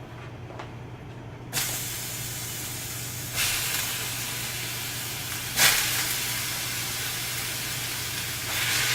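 Food sizzling in a hot pan, over a steady low hum. The sizzle jumps suddenly louder three times and stays loud after each jump.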